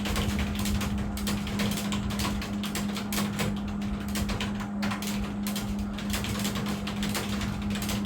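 Fast, continuous typing on a computer keyboard: a dense, irregular clatter of key clicks, over a steady low hum.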